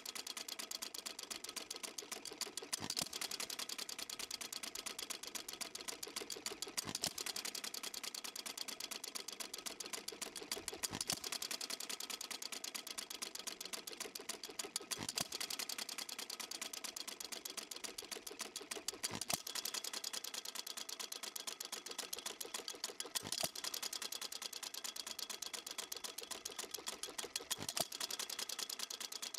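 Stuart Little Major hit-and-miss engine running with a fast, even ticking clatter. A louder stroke comes through about every four seconds.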